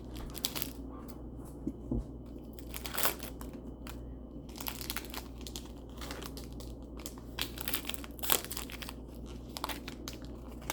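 A Squishmallow trading-card pack being torn and crinkled open by hand, in irregular crackly bursts; the wrapper is hard to open.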